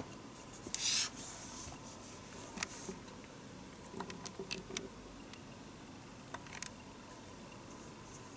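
Hands handling packaging during an unboxing: a brief rubbing swish about a second in, then scattered light taps and clicks.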